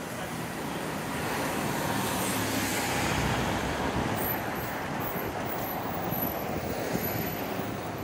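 Road traffic going by, with one vehicle passing close and growing loudest about three seconds in before fading back into the steady hum of traffic.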